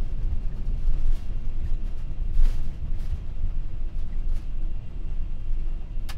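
Cockpit noise of an MD-11F freighter on its landing rollout: a steady heavy low rumble from the gear and engines as the jet decelerates down the runway, with a few light rattles and a sharp click near the end.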